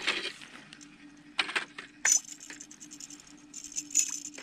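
A few sharp clicks and rattles from an ice-fishing rod, spinning reel and Jaw Jacker rod holder as the rod is taken up to fight a hooked brook trout, with a busier rattling stretch near the end.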